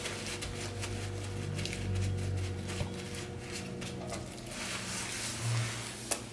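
Brown paper towel crinkling and rustling as it is pressed and rubbed over the skin of a raw, scored sheepshead to pat it dry before frying, with soft dull bumps of hands on the wooden board and a sharp tap near the end.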